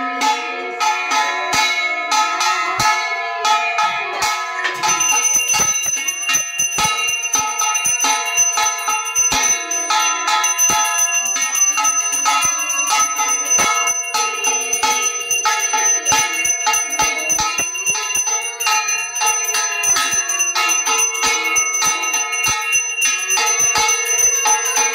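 A puja hand bell rung rapidly and without pause, its ringing tones overlapping.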